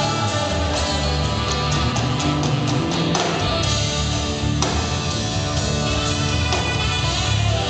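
Live rock band playing without singing: electric guitar, bass guitar and drums, with a run of evenly spaced drum hits partway through.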